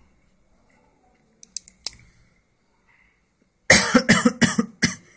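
A person coughing: a quick run of about five coughs near the end, after a few light clicks about a second and a half in.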